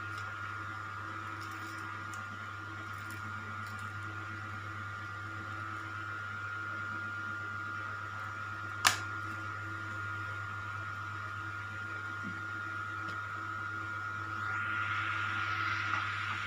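Steady mechanical hum with a high whine running under it, one sharp click about nine seconds in, and a hiss that swells near the end.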